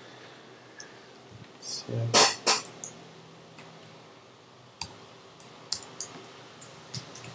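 Computer keyboard keys clicking one at a time as code is typed, in the second half. About two seconds in, a person makes two short, loud throat sounds, louder than the typing.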